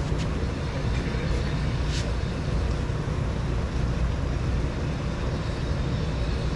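Steady rumble and hiss of compressed-air powder coating equipment running, with a few faint ticks in the first couple of seconds.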